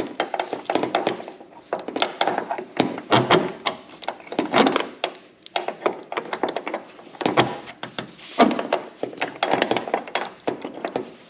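Irregular metal clunks and knocks as a worn, loose lower door hinge pin is worked out of a 1992 Pontiac Firebird's hinge with vise grips.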